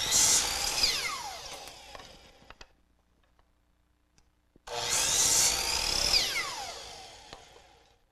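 Electric chop saw run twice, each time whining up to speed and cutting a wooden segment, then winding down with a falling whine. The second run starts about halfway through.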